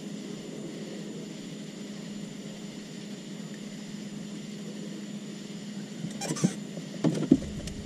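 A steady low hum with a faint high whine above it. About six seconds in come a few sharp knocks and short squeaks, like gear being handled in the boat.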